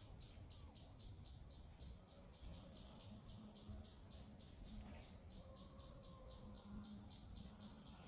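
Faint, rhythmic high-pitched chirping from a small animal, about four short chirps a second, pausing briefly partway through.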